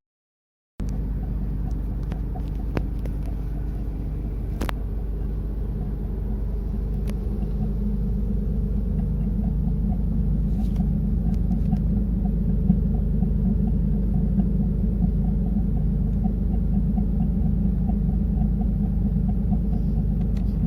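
Nissan Z32 Fairlady Z's VG30DE V6 engine running steadily, a low rumble that starts about a second in and grows slightly louder.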